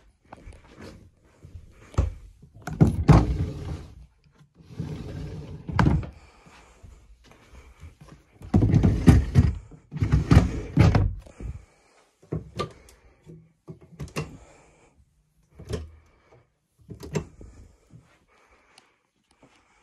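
Wooden drawers and cupboard doors in a camper being opened and shut: long sliding scrapes, the longest about nine to eleven seconds in as a drawer is pulled out, then a run of shorter, sharper knocks and clicks in the second half.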